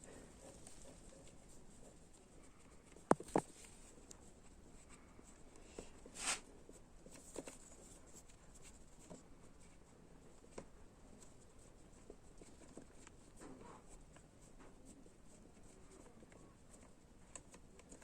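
Quiet hand-tool work on a motorcycle engine being dismantled: faint handling and rustling, with two sharp clicks a little over three seconds in and a few lighter knocks later.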